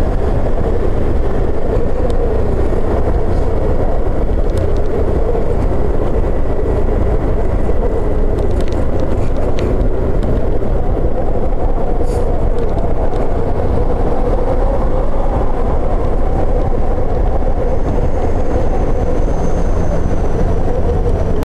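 Motorcycle cruising at about 25 km/h: steady engine and road noise mixed with wind rushing over the mounted camera's microphone.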